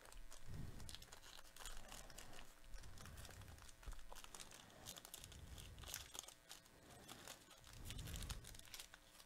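Foil trading card pack wrapper crinkling and tearing as gloved hands peel it open and unfold it, faint irregular crackles throughout.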